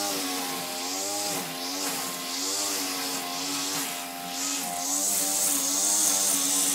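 String trimmer (weed whacker) engine running steadily, its pitch wavering up and down as the throttle is worked.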